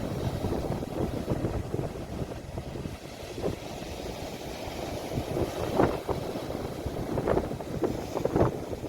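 Sea waves recorded on a phone, heard as a steady low rumble with wind buffeting the microphone and a few brief louder surges in the second half.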